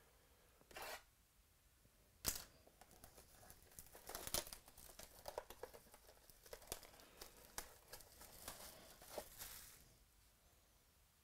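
Clear plastic shrink wrap being torn and peeled off a cardboard trading-card box, crinkling and crackling for several seconds, with a sharp snap about two seconds in.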